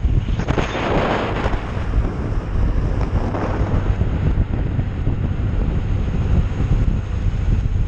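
Wind buffeting the microphone of a moving rider, over a steady low rumble. A louder rush of wind comes about a second in, and a smaller one a little after three seconds.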